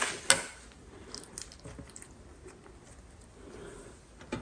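Quiet kitchen handling. A sharp click sounds as a knife is set down on a stone countertop, then soft handling noise follows as a piece of dough is lifted and moved onto a metal baking tray, with a small knock near the end.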